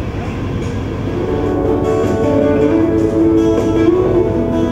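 Film soundtrack music played over loudspeakers in a hall: a plucked-string, guitar-like melody that comes in about one and a half seconds in, over a steady low rumble.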